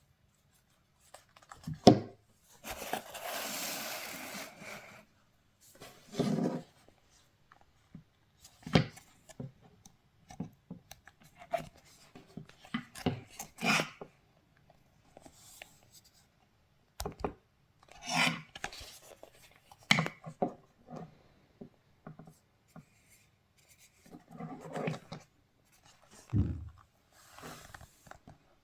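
Handling noises of an unboxing: scattered rubbing, scraping and light knocks of packaging and headphones being handled, with a longer scrape about three seconds in.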